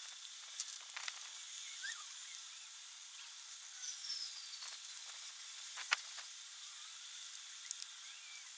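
Steady faint high hiss with scattered light clicks and ticks, and a faint falling whistle about four seconds in.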